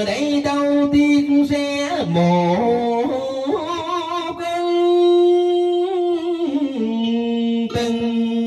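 A man singing a tân cổ song (Vietnamese cải lương-style singing) into a handheld microphone, sliding between notes and holding one long note about halfway through.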